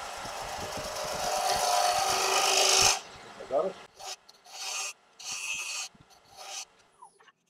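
A 1-inch round-nose scraper cutting inside a tigerwood box spinning on a wood lathe, taking off the small nub left in the bottom: a steady scraping hiss that grows louder for about three seconds and stops abruptly, followed by several short, separate scraping strokes.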